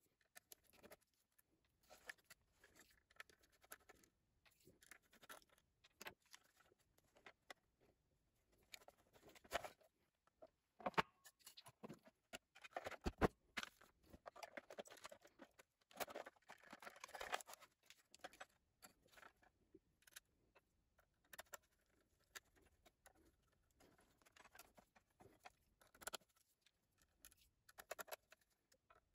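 Quiet, scattered handling noise as an optical drive in its metal bracket is worked on with a small screwdriver. There are light clicks, taps and scrapes of sheet-metal parts and Torx screws, busiest around the middle, with one sharper click about halfway through.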